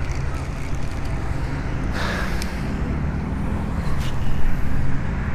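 Strong wind buffeting the microphone: a steady low rumble, with a few brief clicks.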